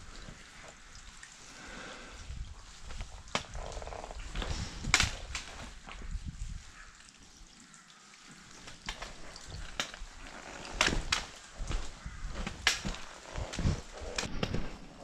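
Wind buffeting the microphone in gusts, dropping away in the middle, with scattered sharp clicks and knocks that are most frequent in the second half.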